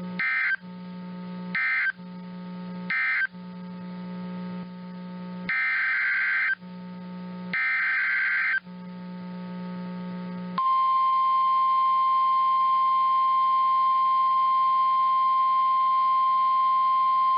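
Emergency Alert System data bursts: three short, then two longer, harsh buzzing chirps with a low hum between them. From about ten seconds in they give way to the steady, piercing 1050 Hz warning alarm tone that announces a new warning.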